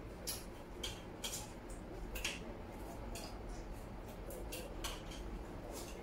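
Chopsticks and eating utensils clicking and scraping against ceramic bowls and plates during a meal: a dozen or so light, irregular clicks, the loudest a little over two seconds in.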